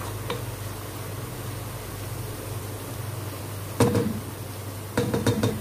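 Sliced onions frying in oil in a pot, a steady sizzle over a low hum, with a wooden spoon knocking against the pot once about four seconds in and several times quickly a second later.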